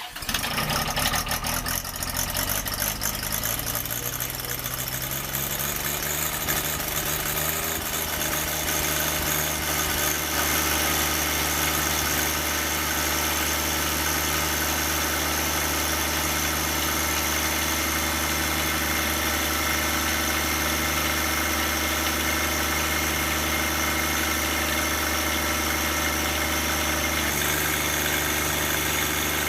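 Small tractor's engine running, its pitch climbing over the first several seconds as it speeds up, then holding steady.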